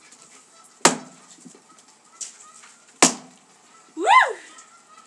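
Axe blade striking a log on a chopping block: two sharp chops about two seconds apart split the log. Near the end comes a short pitched cry that rises and falls.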